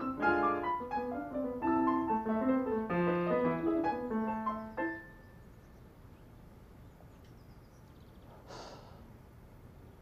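Upright piano played in quick runs of notes and chords, which stop abruptly about halfway through. After a few quiet seconds comes a short breath near the end.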